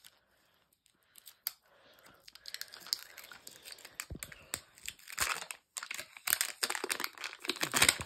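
Thin plastic wrapping being torn and peeled off a Mini Brands capsule ball by hand, crinkling. It starts about two seconds in and is loudest near the end.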